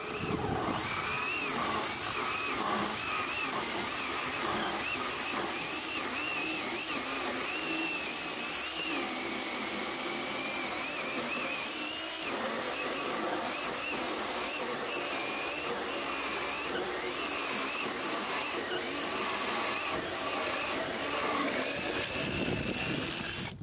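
Onegreen 36V brushless cordless chainsaw cutting through a 300×300 mm timber beam, its motor pitch wavering under load as the chain chews through the wood, running on slightly discharged batteries. It starts right at the beginning and stops suddenly at the very end as the cut goes through.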